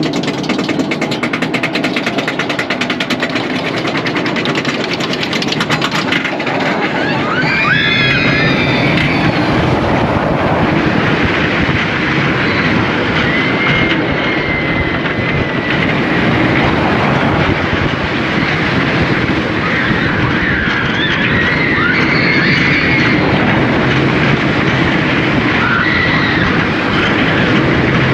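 Iron Gwazi, a Rocky Mountain Construction hybrid roller coaster, heard on board. For about the first six seconds there is a fast, even clatter typical of the lift hill; after that the train runs the course with a loud rush of wind and wheel noise, and short high squeals come through now and then.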